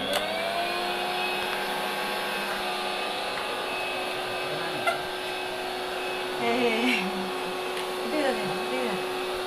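Sharp EC-8305 vacuum cleaner motor running steadily after being switched on, its whine rising and settling to a steady pitch in the first moment. A voice is heard over it later on.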